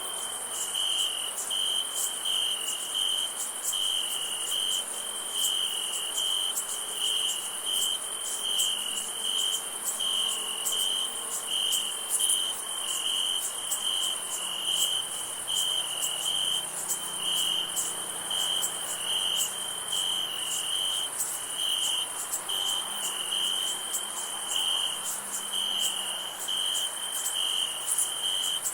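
Field crickets chirping in a steady pulsing chorus, with a high, fast ticking trill of other insects above.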